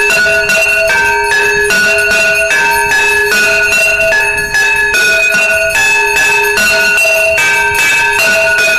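Temple bells ringing without a break during arati, two bell pitches alternating roughly every half second over a dense, rapid clanging of metal strikes.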